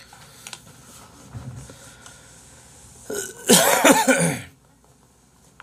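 A man coughing hard several times in a row, in one fit lasting about a second and a half, starting about three seconds in.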